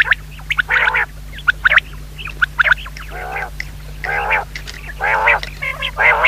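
Quail calling: a run of short calls, roughly one a second, each lasting about a third to half a second, with short sharp chips in between.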